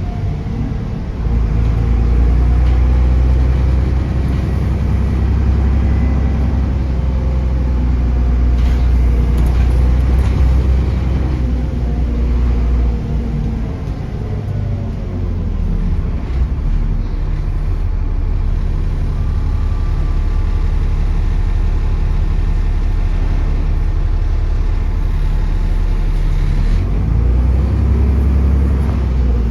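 Bus diesel engine heard from on board during a journey, pulling hard about a second in, easing off, then building again, its pitch rising and falling with the gears, with a faint high turbo whistle over the rumble.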